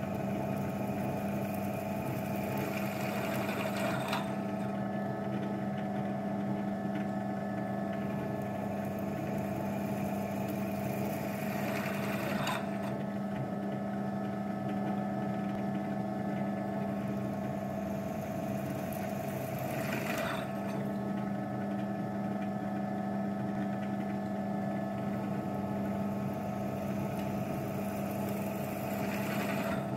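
Electric motor of a metalworking machine tool running with a steady hum. About every eight seconds a high hiss builds up and then stops abruptly.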